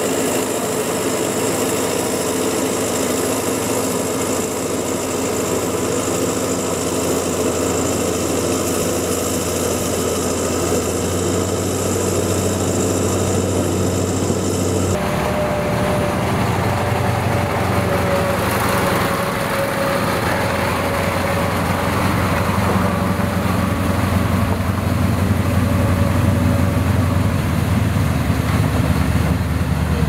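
Diesel engine of a rubber-tyred road roller running as the roller rolls over gravel, with a steady high whine. About halfway through, this cuts to a heavy truck's diesel engine running as the truck drives along the gravel road.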